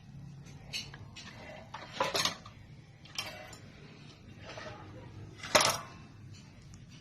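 A few light clicks and clattering knocks of things being handled, with the loudest knock about five and a half seconds in.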